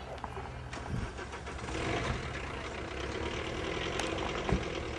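A car engine starting up and running steadily, getting louder about two seconds in.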